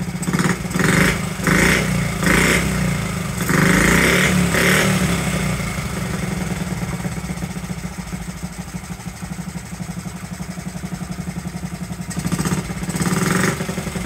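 Honda Z50's small single-cylinder four-stroke engine running after 35 years of sitting, revved in short bursts through the first few seconds and then settling to a steady, pulsing idle, with two more quick revs near the end. The idle and idle air screws are being set for the highest idle.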